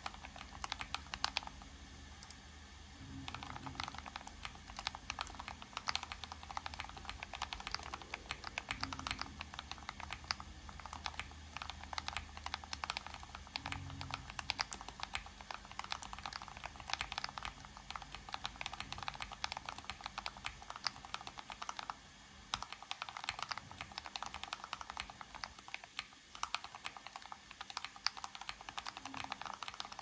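Fast typing on a split mechanical keyboard with clear cases and purple keycaps: a dense, continuous stream of key clicks and clacks, with brief pauses about two seconds in and again about 22 seconds in.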